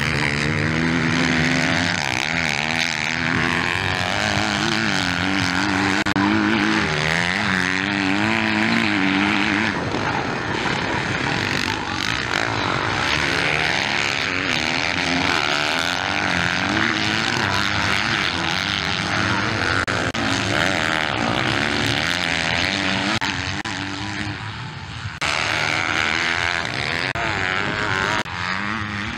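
Motocross bike engines revving, their pitch repeatedly rising and falling as the riders work the throttle. The sound jumps abruptly a few times near the end.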